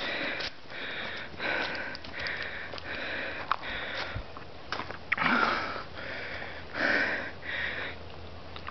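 A person sniffing and breathing hard close to the microphone, a rough breath every second or so, with the strongest about five and seven seconds in. A few sharp clicks of handling noise come between the breaths.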